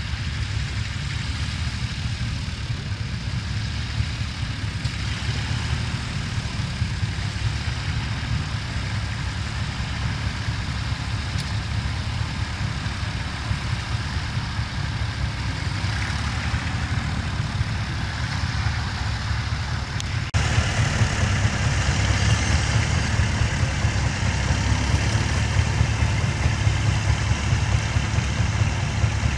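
Vintage tractor engine running steadily under load while pulling a mounted plough through the soil, with a fast low chug. It becomes louder and closer about two-thirds of the way through.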